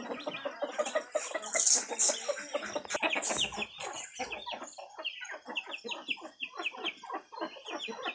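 Free-range village chickens clucking, several at once, with many short overlapping calls coming in quick series in the second half. A couple of brief rustling noises break in near the start.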